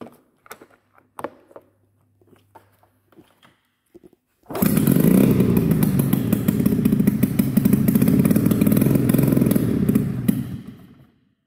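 1996 Arctic Cat Panther's two-stroke twin snowmobile engine firing about four and a half seconds in and running loud and rough with its expansion-chamber exhaust off, on a small shot of priming fuel, then dying out after about six seconds. Small clicks and knocks come before it.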